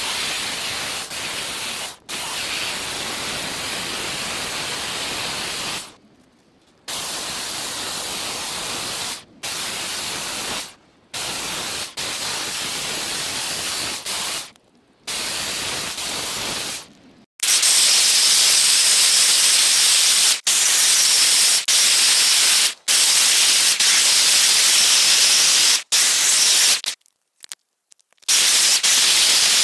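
Corded electric chainsaw ripping lengthwise through a log on a homemade board-guided chainsaw mill: a steady, noisy cutting sound. It stops abruptly several times with short silent gaps between clips, and gets louder about halfway through.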